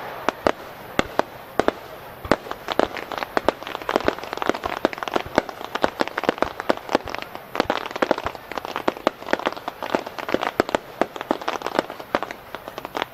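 Starmine fireworks barrage: a continuous rapid run of shell bursts, many sharp bangs and cracks a second, irregular and overlapping, with crackling in between.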